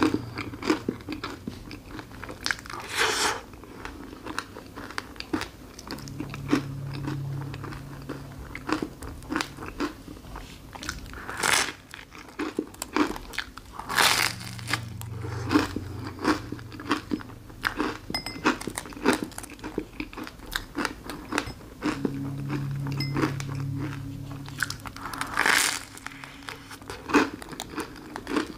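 Close-up eating sounds: a crisp waffle topped with whipped cream bitten into with about four loud crunches, between stretches of steady crackly chewing.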